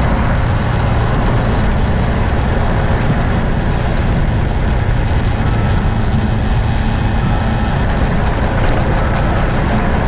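Steady running noise from a moving road vehicle: a constant low engine and road rumble with no change in pace.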